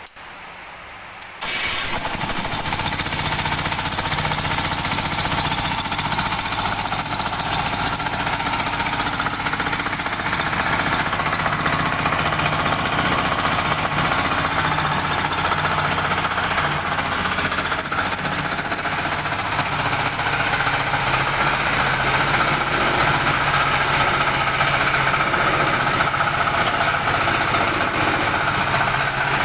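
Honda engine of a single-drum baby roller compactor starting about a second and a half in, then running steadily.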